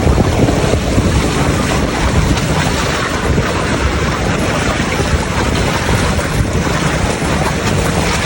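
Steady wind buffeting the microphone, with the sea washing against the rock wall beneath it.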